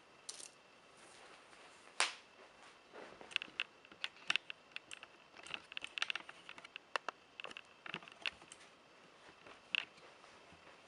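Light metallic clicks and clinks of steel handcuffs and chain being handled, scattered and irregular, with one sharper click about two seconds in.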